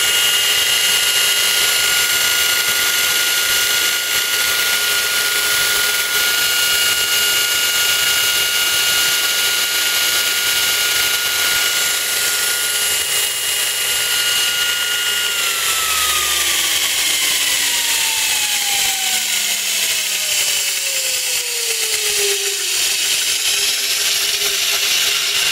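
Baldor 2" x 48" three-phase belt sander running with no workpiece, a steady high motor whine over the hiss of the moving belt. About 15 seconds in the whine starts falling steadily in pitch as the motor slows down.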